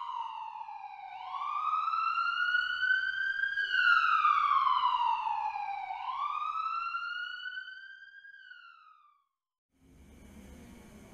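Emergency-vehicle siren wailing in slow rising and falling sweeps, each a couple of seconds long, fading away about nine seconds in. A faint steady hum follows near the end.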